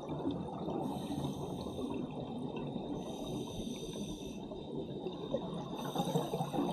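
Underwater sound of scuba divers' exhaled bubbles, a steady crackling gurgle that swells a little near the end as a burst of bubbles passes.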